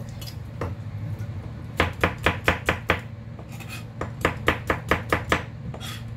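Kitchen knife chopping on a plastic cutting board: a few single cuts, then two quick runs of chops at about four a second, separated by a short pause.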